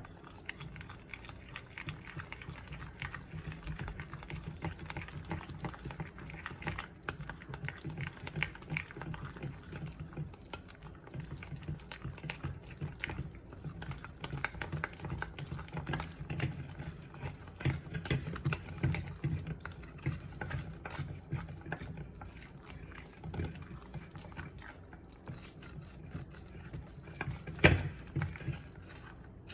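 Food preparation sounds: a steady run of irregular small clicks, taps and wet sounds, with one sharp knock near the end.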